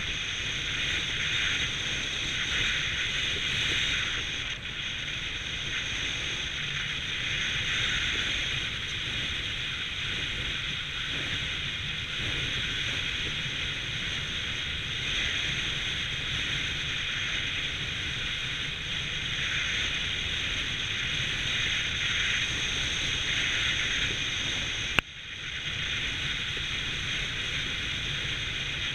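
Steady rush of wind over the microphone of a skydiver gliding under a ram-air parachute canopy. A single sharp click with a brief drop in level about 25 seconds in.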